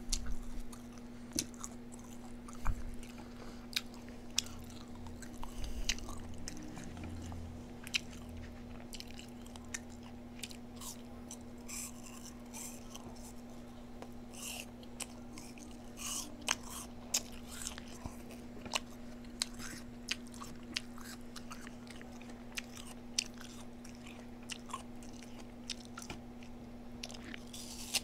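Close-up eating sounds: chewing and biting into food, with many short crunchy clicks scattered irregularly throughout, over a steady low hum.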